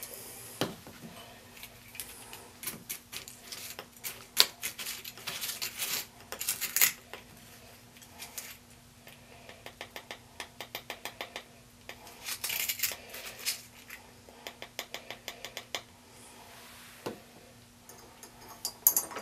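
Clinking, scraping and rattling of lab glassware, a jar and a utensil while a sodium ferrocyanide solution is being mixed. Near the middle comes a run of quick, even clinks, about four a second.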